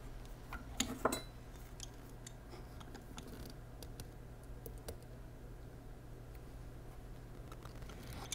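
Light metallic clicks and taps of pliers on a knife's metal pocket clip held in a vise, as the clip is gently bent open. The clearest clicks come about a second in, with fainter scattered ticks after.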